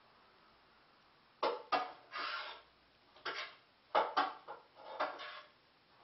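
Kitchenware being handled at a counter: a series of sharp clinks and knocks of pots, dishes and utensils, with a few short scraping sounds, starting about a second and a half in.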